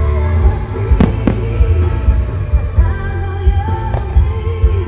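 A song with singing plays over loudspeakers during a fireworks display, with fireworks going off under it and two sharp bangs about a second in.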